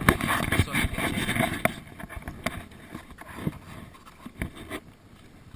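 Footsteps, scuffs and rustling on mangrove mud and leaf litter, with irregular knocks, loudest in the first two seconds and quieter after.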